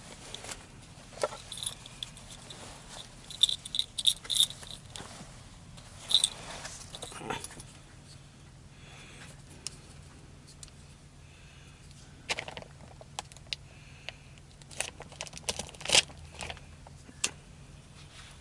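Handling noises: scattered clicks, taps and light rattling of small hard objects being picked up and moved, in loose clusters with pauses between. A low steady hum runs underneath.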